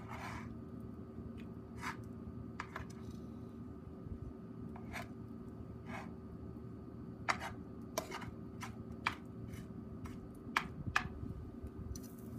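Long metal cooking tongs clicking against a frying pan and a wire grill as pieces of meat are picked up, a dozen or so irregular sharp clicks. Near the end a hiss of sizzling starts as meat goes onto the grill over glowing charcoal.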